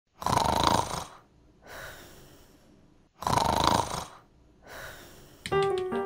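Snoring: two loud snores about three seconds apart, each followed by a softer breath out. Music starts just before the end.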